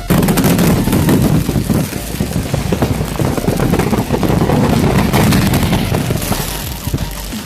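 Firecrackers going off in a rapid, dense string of sharp cracks and bangs, starting suddenly and easing off slightly near the end.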